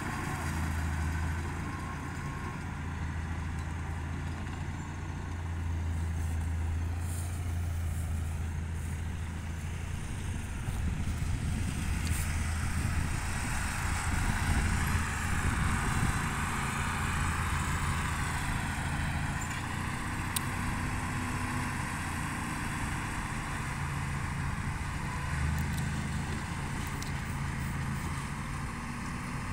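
Diesel engines of a dump truck and a small crawler bulldozer running together through wet, slippery mud in a steady low drone. The drone grows louder and harsher through the middle as the machines work harder.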